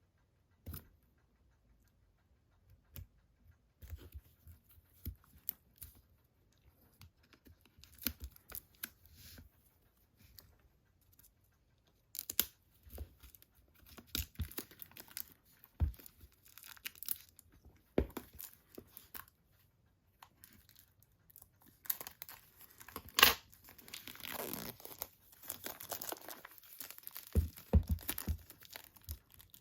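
Plastic wrapping being torn and peeled off a boxed disc set: crinkling and tearing, with scattered light knocks and clicks of handling. The tearing is densest in the last few seconds, with a sharp snap partway through.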